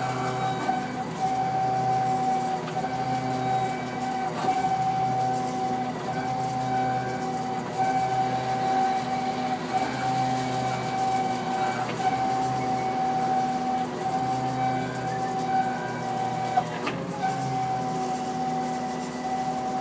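A steady machine hum with a high-pitched whine over it; the whine drops out briefly every second or two.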